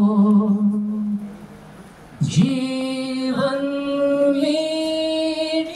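A man singing a slow Hindi song into a handheld microphone, holding long notes. The first note fades a little after a second in. After a short breath, a new long note starts just past two seconds and steps up in pitch near the end.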